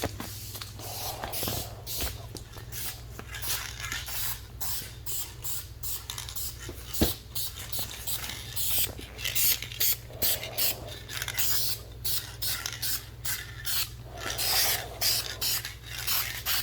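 Aerosol spray paint can hissing in many short, light bursts, one after another, as a thin coat is dusted on.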